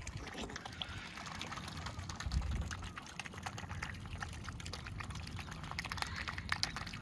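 Mute swans dabbling at the water surface as they feed, their bills making rapid, small pattering splashes, busiest near the end.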